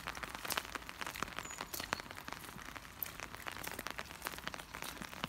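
Rain falling: many irregular, sharp drop hits over a faint steady hiss.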